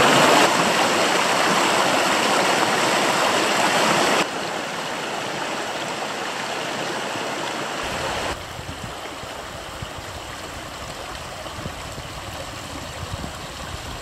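Water of a wild river rushing over rocks in a continuous, even rush. It drops abruptly in level twice, about four and about eight seconds in.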